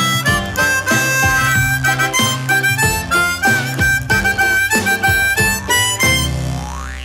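Instrumental closing-theme music: a quick, bright melody over a bouncing bass line, ending about six seconds in on a long held low note that starts to fade.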